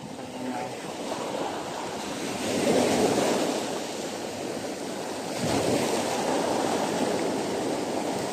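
Rough sea surf breaking and washing up a beach, the wash swelling louder about two and a half seconds in and again around five and a half seconds.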